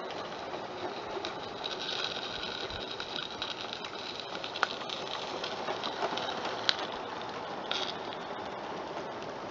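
Small live-steam garden-railway locomotive running on its track, a steady hiss with a few light sharp clicks.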